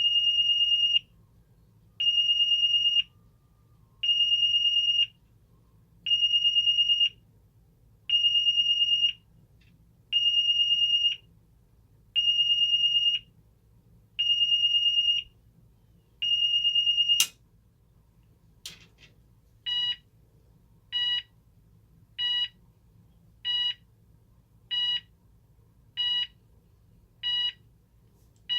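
Cooper MIN-T fire alarm sounder stepping through its tones: first a single high steady tone pulsing one second on, one second off, about nine times. Two clicks follow, then the sounder switches to a different, harsher tone in short beeps about every second and a quarter.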